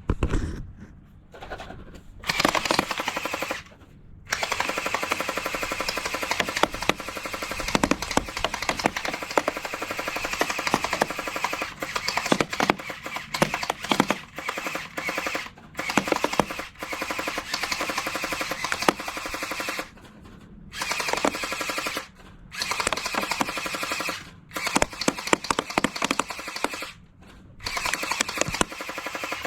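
Electric gel ball blaster pistol firing on full auto: a motor whirring under a rapid stream of shots, in one long burst and several shorter ones with brief pauses between them.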